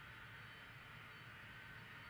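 Faint, steady hum of a Boeing 767-300ER's jet engines at idle as it taxis onto the runway before takeoff, with a faint steady whine over a low rumble.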